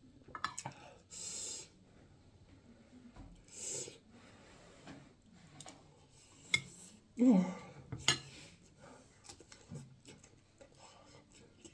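Close-up eating sounds: cutlery clicking and scraping against a plate of jollof rice and chicken, with chewing, scattered sharp clicks and a few short hissy bursts. A brief voiced 'mm' comes about seven seconds in.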